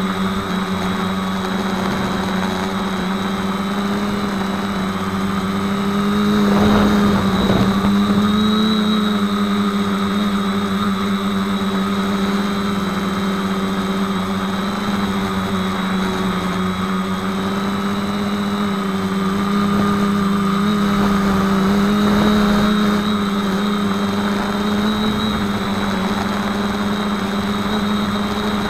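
Electric motors and propellers of a 450-size quadcopter, heard from a camera on its frame, running with a steady buzzing whine whose pitch wavers slightly with throttle. The sound swells louder with a rush about six to eight seconds in and again near the end.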